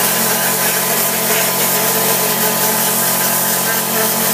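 Tornador Black pneumatic cleaning gun blasting compressed air and cleaner onto an alloy wheel: a loud, steady hiss over a steady low hum.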